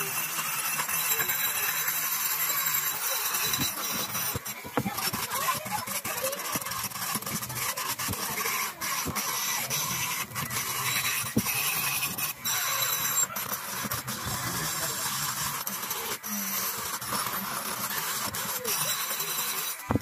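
Small hand-held rotary tool spinning a pink abrasive stone bit against an old rusty steel turnbuckle, grinding off the rust: a steady high whine with a rasping grind, dipping briefly a few times as the bit is lifted and set down again.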